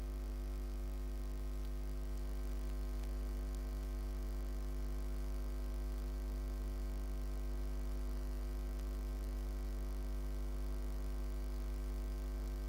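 Steady electrical mains hum, a low drone with a stack of higher overtones that holds unchanged throughout.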